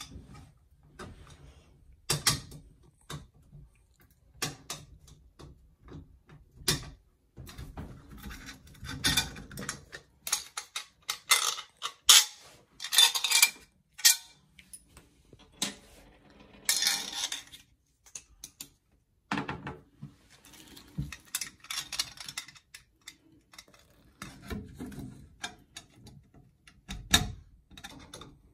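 Irregular metal clinks, taps and scrapes of screws and a screwdriver against a shower faucet's trim plate as it is fitted and screwed onto the valve, with longer stretches of scraping around the middle.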